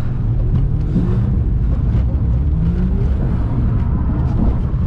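Naturally aspirated Ford FG Falcon engine heard from inside the cabin, revving under throttle with its pitch rising and falling as the car is swung into a slide.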